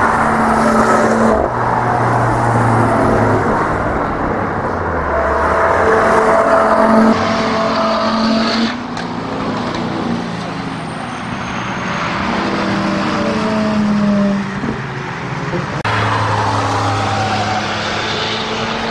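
Road cars driving past one at a time on a race track: a compact estate car, then a full-size pickup truck, then another small car, their engines running loud and steady. The sound cuts abruptly from one pass to the next, and near the end an engine note falls in pitch as a car goes by.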